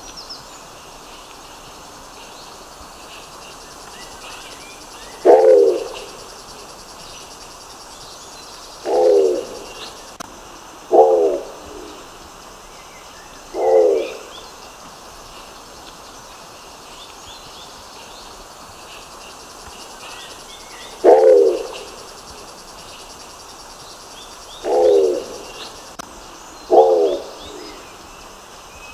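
Nicobar pigeon giving short, low calls of about half a second each, seven of them at irregular gaps of two to seven seconds. Faint high chirps and a steady hiss run underneath.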